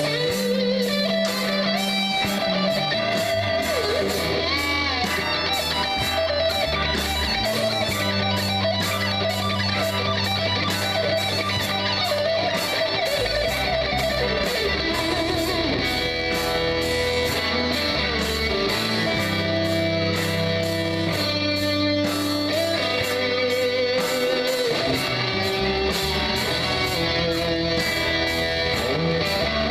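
Live rock band playing loud and steady: electric guitars, with a lead guitar bending notes, over held bass-guitar notes and a steady drum beat.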